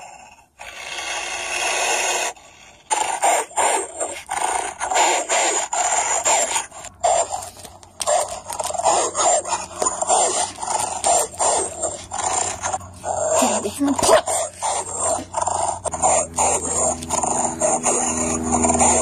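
Dog-like growling, snarling and yelping in a quick, choppy run, broken briefly near the start.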